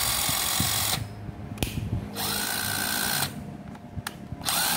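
Ryobi BID-1226 12 V cordless impact driver run free in short trigger pulls. Its motor whines up in pitch each time it spins up: one run stops about a second in, another runs in the middle, and a third starts near the end.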